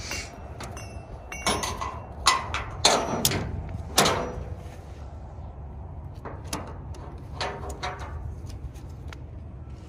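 Irregular metal clacks and clicks of a ratchet tie-down strap's hooks and ratchet buckle being handled against a steel trailer deck, several sharp ones in the first half and lighter ticks later, over a steady low hum.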